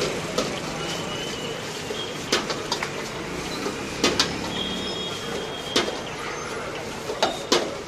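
Metal ladle knocking and scraping against an iron wok as fried rice is stirred and tossed, about eight sharp clanks at irregular intervals, over a steady rush from the gas burner flame and street noise.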